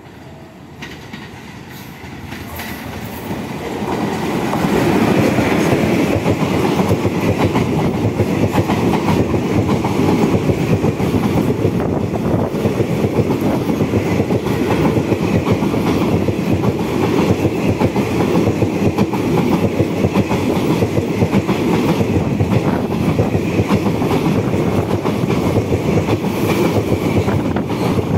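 Express passenger train hauled by a WAP-4 electric locomotive, running through a station without stopping. It grows louder over the first five seconds as it approaches, then holds a steady rumble and clickety-clack of wheels over rail joints as the coaches pass.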